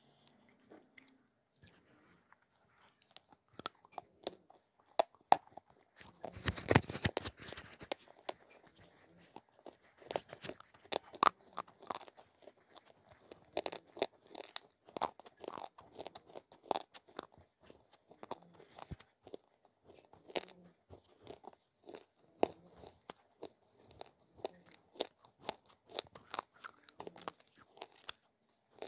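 Close-miked crunching as a chunk of baked clay ('Punjabi mitti') mixed with slate pencil pieces is bitten and chewed: a loud bite about six seconds in, then a long run of sharp crunching chews.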